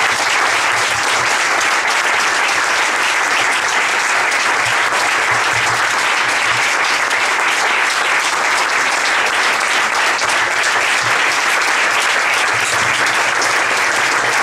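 Audience applauding: steady, sustained clapping from a roomful of people.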